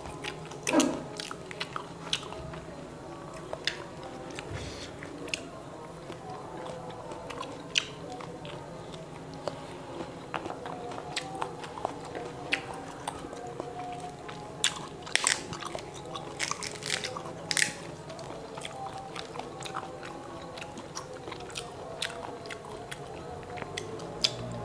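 Thin, brittle matoa fruit shells cracking and being peeled apart by hand, with chewing and mouth sounds as the flesh is eaten. Sharp, irregular cracks come one at a time, with a quick cluster of the loudest ones a little past the middle.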